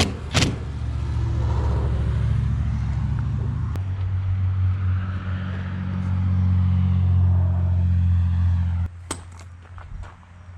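Pickup truck engine running steadily with a low drone. Its pitch steps up about four seconds in, and it cuts off suddenly near the end, followed by a couple of sharp clicks.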